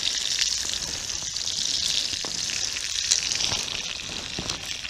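Pork belly in a sticky soy, chilli and honey sauce sizzling steadily in a frying pan, with many small pops and crackles, as it browns.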